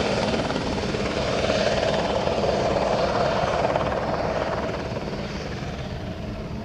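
Eurocopter AStar-type light helicopter flying past low: steady rotor and engine noise that fades over the last couple of seconds.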